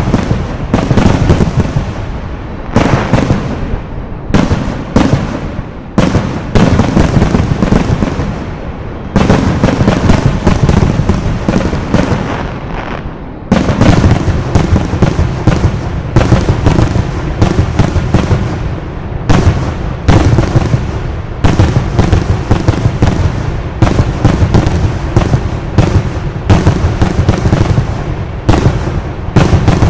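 Fireworks display: aerial shells bursting in a rapid, near-unbroken barrage, one loud boom after another with hardly a pause.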